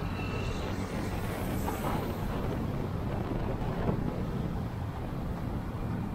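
Wind buffeting the microphone over the steady running hum of a Honda Click 125i scooter's single-cylinder engine while riding on the road.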